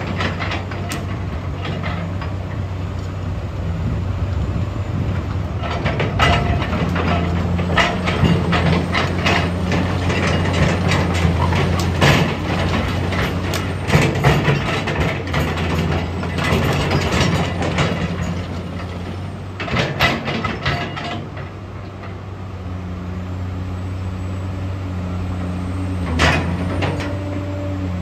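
Caterpillar 345CL hydraulic excavator's diesel engine running steadily, with a run of clicks and rattles while the boom and stick are raised. A few louder knocks come near the end, and the engine's tone shifts as the hydraulics work.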